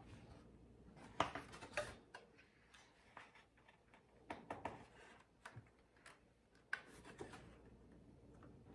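Faint rustling and scattered light taps of a paper cross-stitch pattern being opened and its pages handled, with a couple of slightly louder paper clicks about a second in and again near the end.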